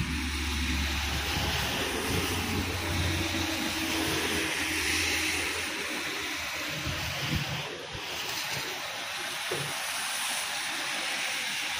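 Heavy rain pouring steadily, a dense even hiss, with a low rumble underneath during the first few seconds.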